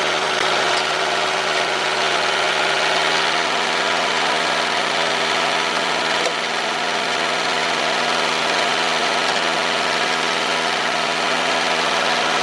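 A small motor running steadily at an even speed, with a brief tick about six seconds in.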